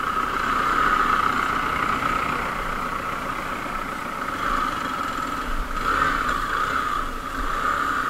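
Hero Xpulse 200 motorcycle's single-cylinder engine running steadily at low speed on a rough gravel track.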